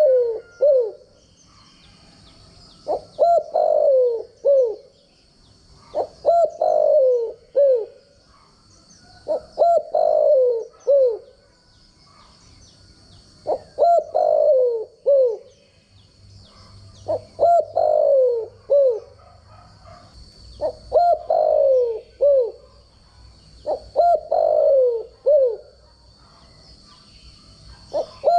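Spotted dove singing, repeating its cooing phrase about every three and a half seconds: each phrase a short opening coo followed by a longer falling coo and one or two short coos at the end.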